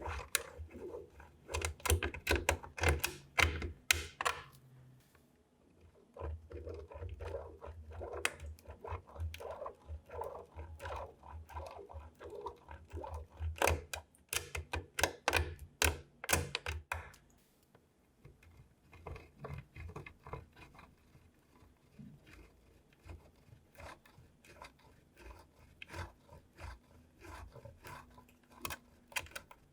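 A knife cutting through soap: quick runs of crisp, crunchy cuts and scrapes, with short pauses between them, becoming quieter in the last third.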